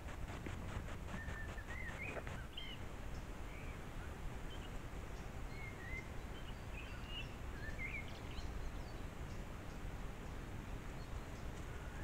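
Woodland background on a trail camera's microphone: a steady low noise with scattered short bird chirps and calls, and a faint fast ticking that stops about two seconds in.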